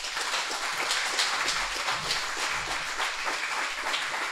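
Audience applauding, a dense and steady round of clapping that starts just before and holds through.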